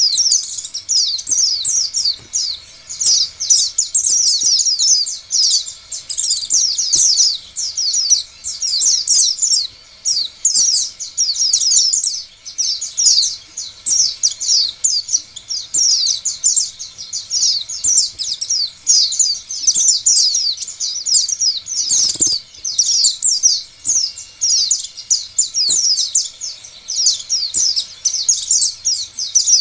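White-eye (pleci) singing a long, unbroken twittering song of rapid, high, falling notes in phrases with short breaks. This is the kind of pleci song keepers play as a lure to set other white-eyes singing.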